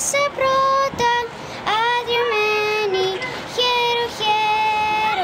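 A girl singing solo, holding long notes that step up and down with short breaks between them.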